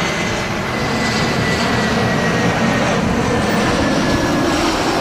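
Jet engines of an AirAsia Airbus A320 landing: a steady roar with a faint high whine that slowly falls in pitch.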